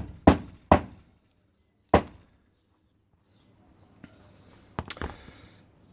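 Hammer blows knocking the brass plug-retention pin out of a padlock body: three sharp metallic strikes in the first two seconds, then a couple of small clicks near the end.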